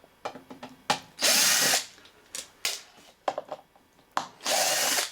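A power driver with a security Torx bit runs twice in short spurts, each under a second, backing out panel screws, with light clicks and handling knocks between the runs.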